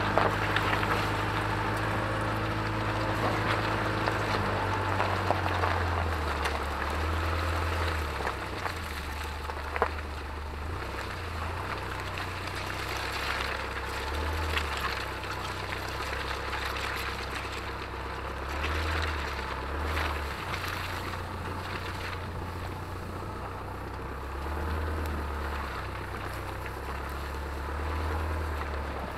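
Mitsubishi Pajero's 3.2 DI-D four-cylinder turbodiesel running as the vehicle crawls off-road, its low drone shifting with the throttle. Tyres crunch over gravel and brush through grass, with scattered knocks and one sharp knock about ten seconds in. The sound is picked up by an action camera mounted low beside the front wheel.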